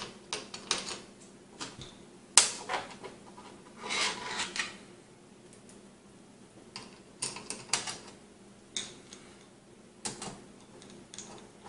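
Hand assembly with screws and a screwdriver: small metal clicks, taps and rattles as screws and washers are set into a metal mounting plate on a monitor's plastic back and driven in by hand. The sounds come in short clusters with quiet gaps, the sharpest click about two and a half seconds in.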